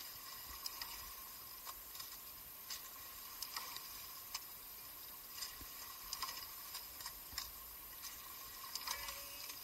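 Faint hiss of water under a rowing eight, with light irregular clicks, roughly one a second, from the oars and rigging.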